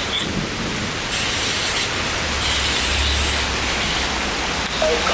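Heavy thunderstorm rain pouring down in gusty squall-line wind, a loud steady rushing. The wind buffets the microphone in a low rumble that swells about two and a half to three and a half seconds in.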